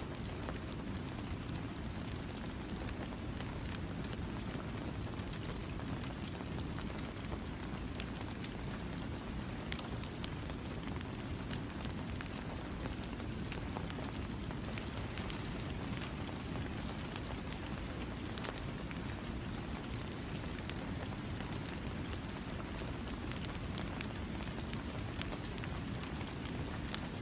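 Steady rain falling: a continuous hiss with many separate drops ticking on a surface.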